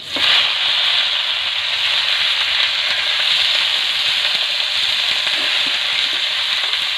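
Loud sizzling of bottle gourd shoots and leaves hitting hot oil and panch phoron in a kadai. It starts abruptly as the greens are tipped in, then continues as an even, steady sizzle.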